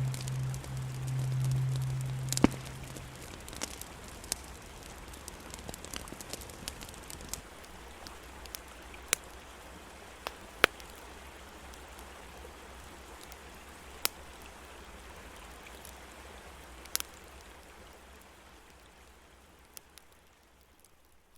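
Campfire crackling, with sharp, irregular pops of burning wood over the steady rush of a brook. A low hum sounds for the first few seconds, and the whole ambience fades out near the end.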